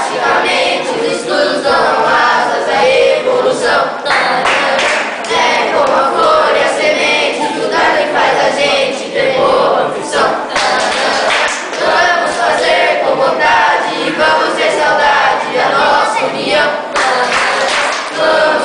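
A group of young voices singing together without instrumental accompaniment, loud and continuous.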